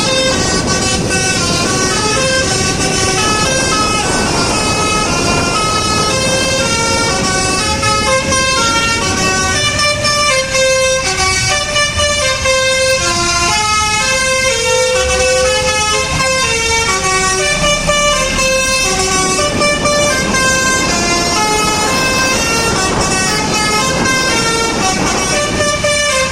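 Basuri telolet multi-tone air horn on a bus playing a melody: a quick run of short notes stepping up and down, often several sounding together. Underneath are a steady engine and road noise.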